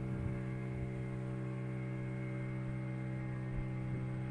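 A boat's motor running at a steady speed, giving a constant hum whose pitch does not change.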